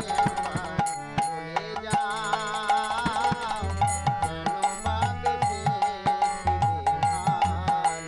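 Indian folk-style music: a hand drum keeps a steady beat under a wavering melody line and a held drone note.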